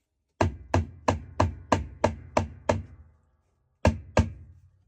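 A quick run of sharp blows, about eight at roughly three a second, then a pause and two more, struck on the seized wash plate of a Maytag Bravos washer to break it loose from its corroded hub.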